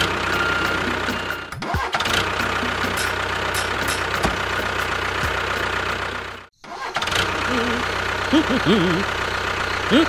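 Tractor engine running steadily with a low, even hum. It cuts out completely for a moment about six and a half seconds in, then starts again.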